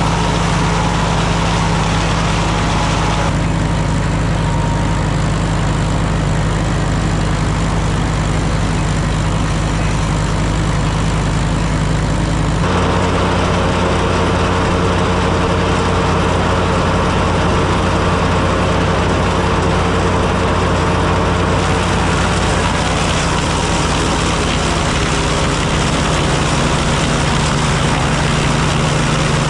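Super W-6 tractor engine running steadily, belt-driving an 1889–1893 S.A. Woods wood planer that is planing rough 2x8 planks. The steady machine noise changes abruptly a few times.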